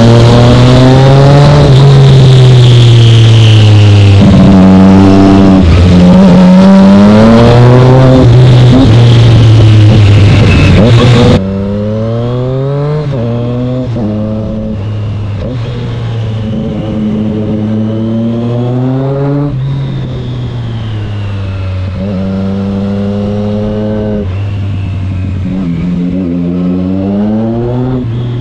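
Triumph Street Triple 660 S inline three-cylinder engine through an SC Project exhaust, repeatedly revving up and dropping in pitch as it pulls through the gears under way. About eleven seconds in, the sound suddenly gets quieter and the wind hiss falls away.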